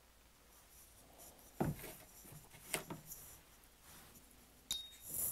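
Faint hand-handling noises at a workbench as a glued wooden toothpick fence post is handled: three light knocks or clicks with a little scratchy rubbing between them.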